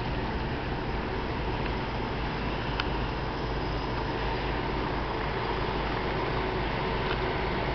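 Inland tanker barge's engine running, a steady low drone that stays even throughout.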